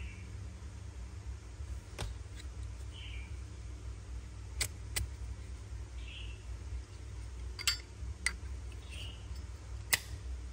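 A metal Zippo lighter being handled: about half a dozen sharp, scattered metallic clicks over a steady low background rumble.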